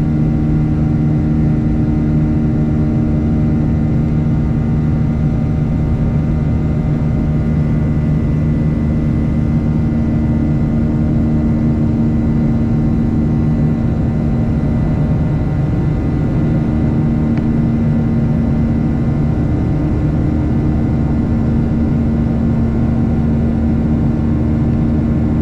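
Airliner engines heard from inside the passenger cabin during climb-out: a loud, steady drone with a deep, constant hum.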